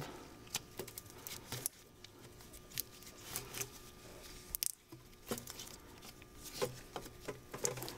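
Faint scattered clicks and rustling as gloved hands feed a rubber head vent hose back through the intake manifold, with the sharpest tick a little before five seconds in.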